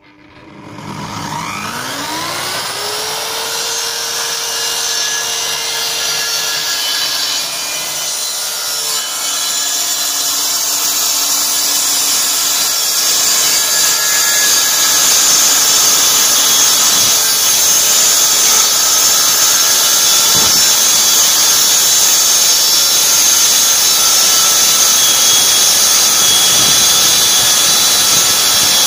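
Electric circular saw spinning up to speed, then cutting through plywood: a steady motor whine with the hiss of the blade in the wood, growing louder partway through the cut and holding there.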